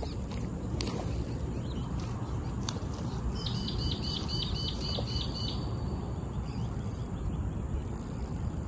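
A bird calls once, a quick series of about eight high repeated notes lasting about a second and a half, over a steady low rumble.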